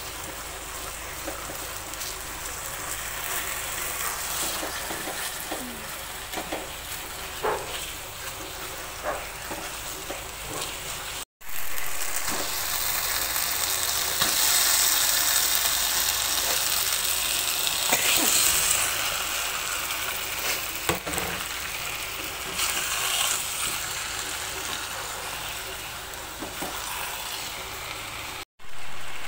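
Blended spice paste sizzling and frying in a wok, being sautéed until dry, while a spatula stirs and scrapes it. After a cut about 11 seconds in, the sizzle is louder as pieces of fish fry in the paste and are stirred.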